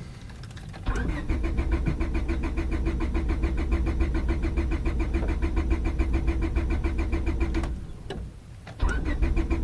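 Starter cranking a 2000 Honda Civic's 1.6 L four-cylinder engine, which turns over evenly for about seven seconds without catching, stops briefly, then begins cranking again near the end. A hard no-start in damp weather.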